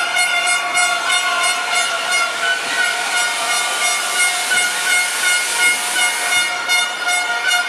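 A long, steady horn-like tone held throughout, over a continuous hiss from stage spark fountains firing overhead.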